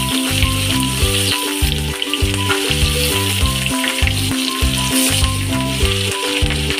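Chopped green chilies frying in hot oil in a wok, sizzling steadily.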